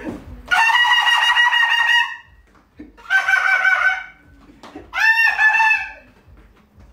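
A man's voice giving three long, shrill, high-pitched calls, each held at a steady pitch for one to one and a half seconds, done as a mouth sound effect. It sounds enough like a boiling kettle's whistle that a listener asks whose kettle has boiled.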